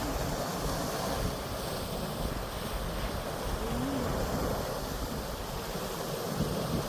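Sea waves washing against the shore in a steady wash of surf, with wind buffeting the microphone and rumbling in the low end.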